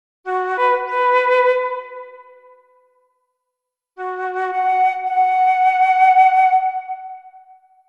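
Background music of long held notes, in two phrases with about a second of silence between them.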